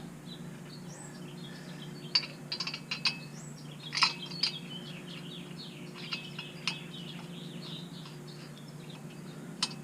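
Faint scattered clicks and clinks of handling metal parts, with birds chirping briefly a few times over a steady low hum. The impact wrench is not running.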